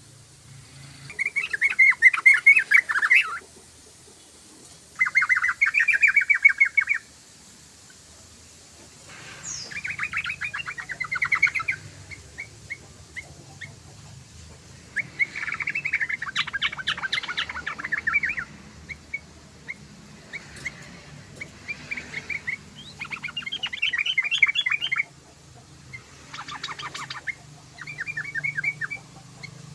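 Yellow-vented bulbul (trucukan) song: about eight phrases of rapid, bubbling chatter, each one to three seconds long, with short pauses between.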